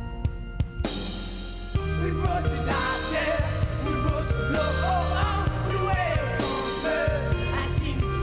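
Background music: a song with singing over drums and bass, the full band coming in about two seconds in.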